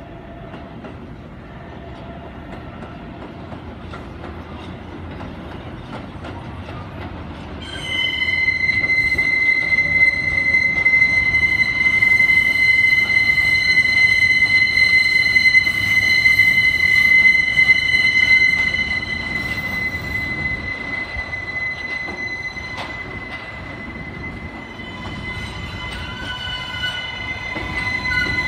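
R143 subway train on a steel elevated structure: a low rumble grows as it approaches, then about eight seconds in a loud, steady high-pitched wheel squeal starts as its wheels grind through a sharp curve. The squeal eases after about twenty seconds and builds again near the end.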